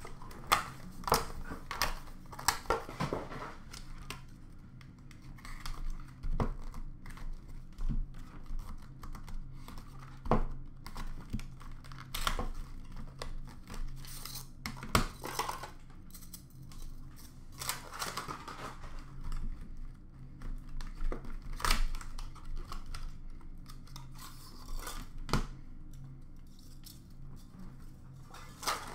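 Hands unboxing a sealed hockey card box: plastic wrap tearing and crinkling and cardboard being handled, with scattered sharp clicks and taps.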